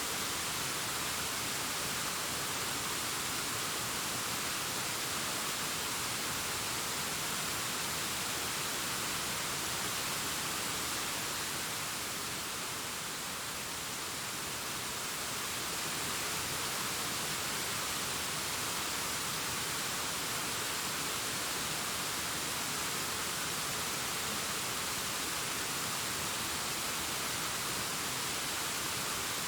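Distant waterfall cascading down a rockface: a steady rushing hiss, stronger in the upper range than in the low, easing slightly for a few seconds about halfway through.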